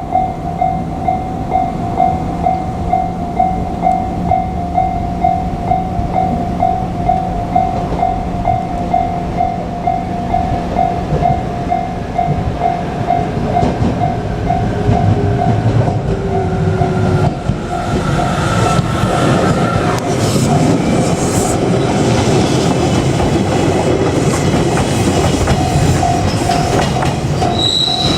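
Japanese level-crossing warning bell ringing in a steady repeated ding, then a JR Kyushu 817-series electric train passes over the crossing from about halfway through, its running noise and wheel clatter partly drowning the bell.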